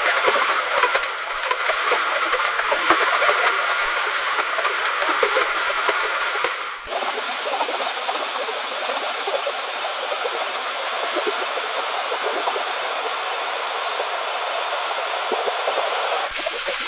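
Swimming pool ambience: a continuous wash of splashing, churning water with a hiss over it, dipping briefly twice where the recording is spliced.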